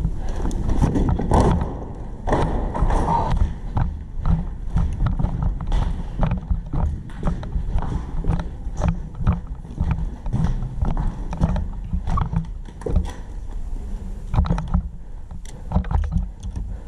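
Footsteps of an airsoft player on the move, with a steady run of short knocks and rustle from his kit, picked up up close by a body-worn camera's microphone.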